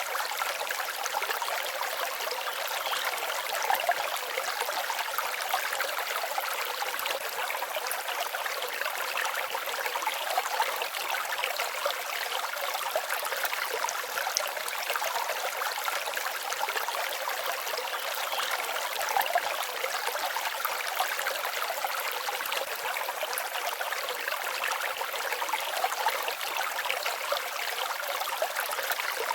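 Forest stream babbling steadily, a continuous rush of water with no deep rumble.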